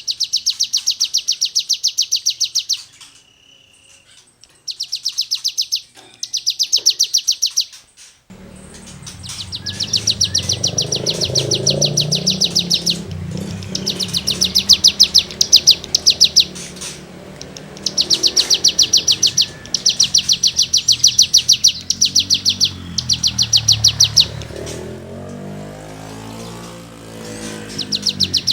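A cigun songbird singing loud, rapid, high-pitched rasping trills in bursts of two to three seconds, broken by short pauses. A low rumbling background noise runs under it from about eight seconds in.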